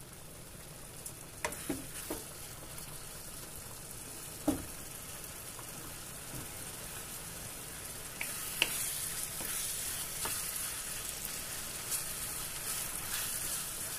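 Chicken in a thick tomato and soy sauce gravy sizzling in a frying pan while a wooden spoon stirs it, knocking against the pan several times. The sizzle grows louder about eight seconds in.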